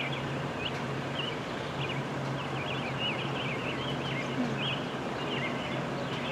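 Many small birds chirping and twittering over a steady low engine hum and outdoor background noise.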